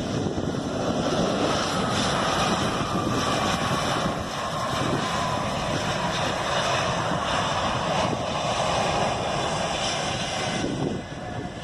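Airbus A320-family airliner's jet engines in reverse thrust on the landing rollout, winding down toward idle as the reversers stow. A falling whine runs under the engine noise, with wind on the microphone, and it all gets quieter near the end.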